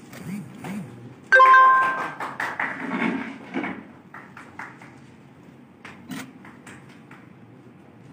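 A sudden loud chime about a second in, ringing with several clear tones and fading within about a second, followed by scattered hand claps from a small group of people.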